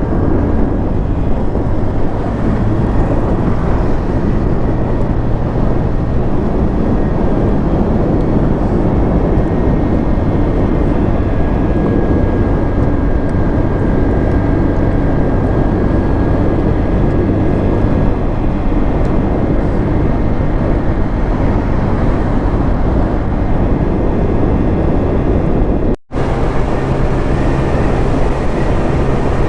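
Motorcycle engine running steadily under way at speed. The sound cuts out for an instant near the end.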